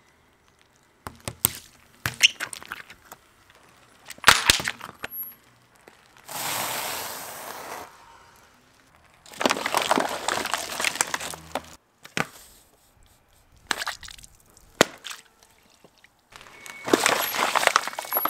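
A car tyre rolling over and crushing liquid-filled balloons and plastic soda bottles. There is a string of sharp cracks and crunches, the loudest crack about four seconds in, then a steady hiss for about two seconds. Longer spells of crackling and spraying follow as the bottles and balloons burst.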